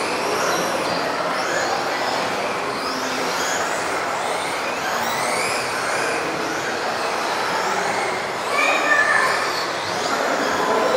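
Several electric RC off-road buggies racing, their motors whining up and down in pitch as they accelerate and brake, over a steady hiss. One gets louder for a moment about eight and a half seconds in.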